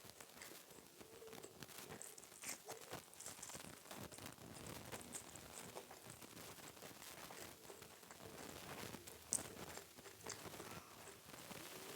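Faint, close-miked eating sounds: soft chewing and small wet mouth clicks, with one sharper click about nine seconds in.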